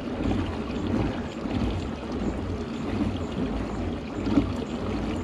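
Water splashing and sloshing around a kayak, an uneven watery noise with a low rumble underneath.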